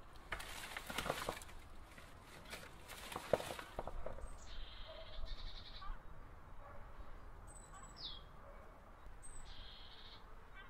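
Leaves and twigs of a jasmine plant rustling as a cat scrambles through and out of it, with one sharp thump. Then several short, high bird chirps, one a quick falling whistle.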